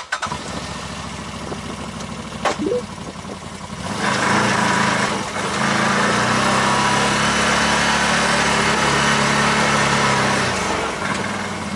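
Vehicle engine running at low speed, picking up and working harder about four seconds in for several seconds, then easing off near the end.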